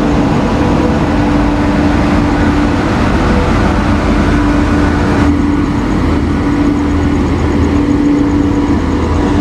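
Passenger train passing on the adjacent track: an Indian Railways electric locomotive goes by, then its coaches roll past, giving a loud, steady rumble with a droning hum. The higher hiss drops off about five seconds in.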